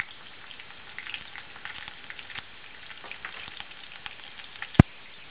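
Hot oil sizzling and crackling around cumin seeds and green chilies frying in a kadai, with many small pops and one much louder sharp pop near the end.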